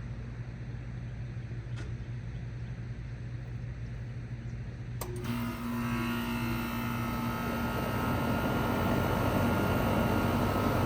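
Steady low hum of a neighbouring Bard unit running. About five seconds in there is a click, and the 2001 Goodman CPLE30 heat pump starts up: its Copeland reciprocating compressor hums and the outdoor fan spins up, getting steadily louder.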